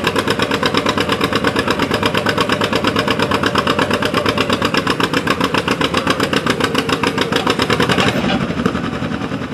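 Farm pulling tractor's engine running hard with a fast, even exhaust pulse, then dropping off and fading about eight seconds in.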